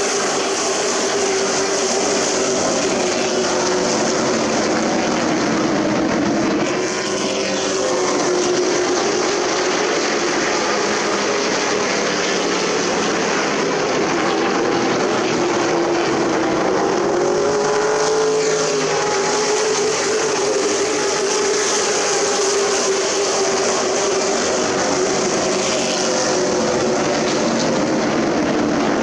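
Super Truck race engines running at speed around a short oval track. The engine pitch swells and dips as the trucks go round, with no break in the sound.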